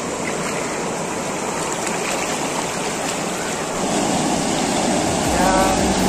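Achankovil river water rushing and churning over a low weir, a steady, even rush of water.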